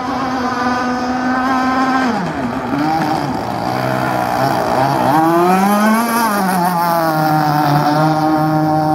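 A radio-controlled speedboat's brand-new motor on its first run, holding a steady high pitch at speed. About two seconds in the pitch drops as it throttles back through a spray-throwing turn. It then climbs again as the boat accelerates away and settles into a steady, slightly lower pitch.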